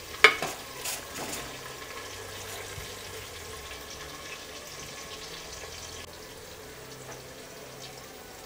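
Sliced onions and whole spices sizzling steadily in hot oil in an aluminium pressure cooker. A steel ladle clinks against the pot a few times in the first second or so.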